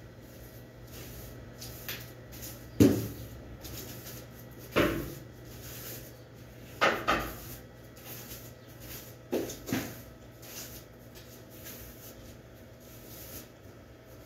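Long-handled broom sweeping dust off a tiled floor: about six sharp, brushing strokes against the tiles, some in quick pairs.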